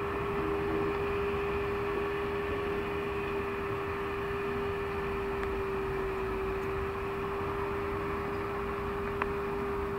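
Steady electric motor hum from a self-made robot mower as it drives itself across a lawn, one even pitch over a background hiss.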